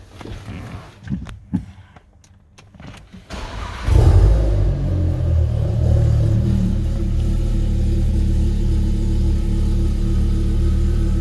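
Audi RS3's DAZA 2.5-litre turbocharged inline-five starting about four seconds in: a short crank, a loud flare of revs, then a steady idle. Before it, a few faint clicks and knocks.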